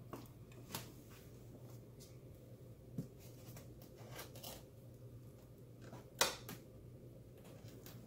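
Faint handling sounds as a Halloween village model house is set down and shifted by hand on a shelf: light scrapes and rustles, a soft knock about three seconds in, and the loudest rustle about six seconds in, over a faint steady low hum.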